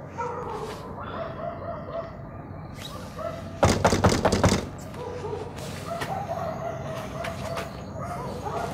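A rooster crowing, several drawn-out calls one after another. A burst of loud knocks comes about three and a half seconds in.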